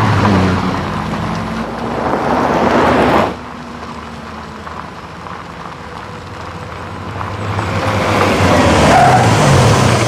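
A BMW X1 SUV driving fast past at close range, engine loud and its pitch dropping as it goes by, cut off abruptly about three seconds in. Then the engine of the SUV approaching from a distance, growing louder with a rising pitch toward the end.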